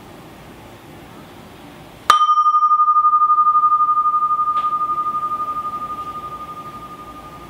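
Sculptural vessel struck once about two seconds in, ringing with one clear tone whose higher overtones die away within a second, while the main tone decays slowly with a slight regular pulsing. A faint tick sounds partway through the ring.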